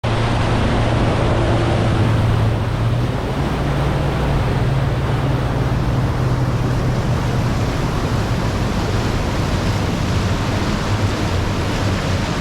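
Fishing boat running across the lake: steady wind rush over the microphone and water noise, with the low steady hum of the outboard motor underneath.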